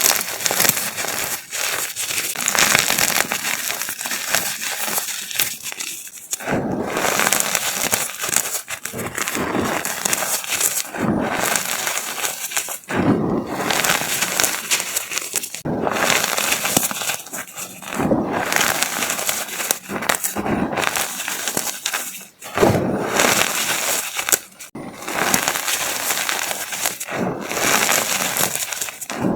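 A large block of chalk being crushed and crumbled, a dense crunchy crackling that comes in stretches of a few seconds with short pauses between them.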